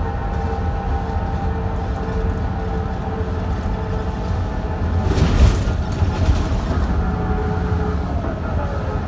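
Inside a BMC Procity city bus cruising at high speed: steady engine and road rumble with the whine of the differential and the ZF Ecomat automatic gearbox in sixth gear. A louder rush of noise swells about five seconds in, and near the end the whine drops a little in pitch.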